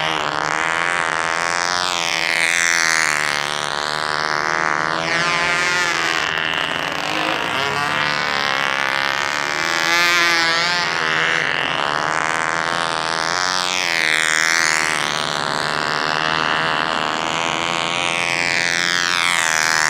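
McCoy .29 Red Head glow engine running in a control-line Ringmaster model plane, its pitch rising and falling over and over as the plane circles.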